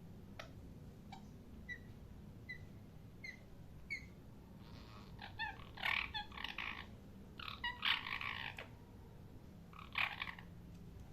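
Parrot calling: a series of short, high chirps spaced evenly under a second apart, then louder, harsher calls in three bursts from about halfway through.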